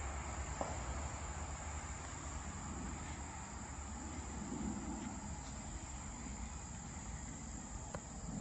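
Steady, unbroken high-pitched trilling of insects in the trees, over a faint low rumble.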